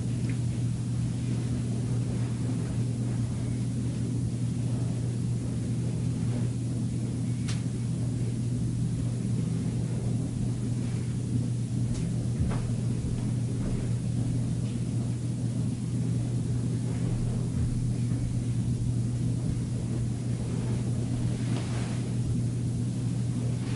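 A steady low hum over a faint hiss, with a few faint brief clicks in the middle.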